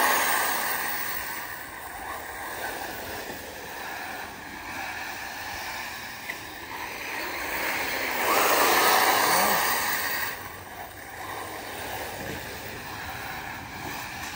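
Several ARRMA Typhon 6S brushless electric RC buggies racing on a dirt track: a steady hissing rush of tyres on loose dirt with a faint motor whine, swelling loudest for a couple of seconds about eight seconds in as the cars come close.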